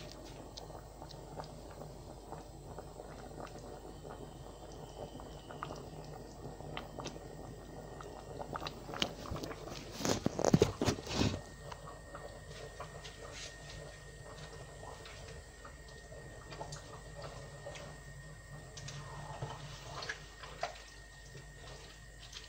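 Curry simmering in a pot, with small pops and bubbling over a steady low hum. About ten seconds in there is a short cluster of loud knocks and rustling as the phone camera is handled.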